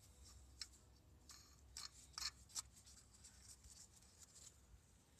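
Faint scattered clicks and light scraping of hand work on the power steering fluid reservoir, a handful of small contacts over a low steady hum.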